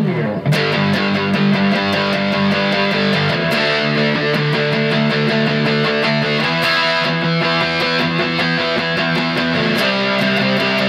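Peavey Tracer electric guitar played through a BBE 427 high-gain distortion pedal into an Acoustic Control Corp 117 amp. It plays rapidly picked, heavily distorted chords that change about every three seconds.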